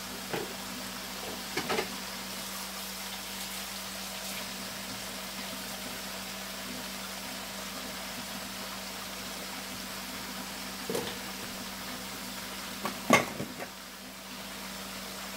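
Pork chops with sliced onions and green peppers sizzling steadily in a frying pan, over a steady low hum. A few short knocks sound, the loudest about 13 seconds in.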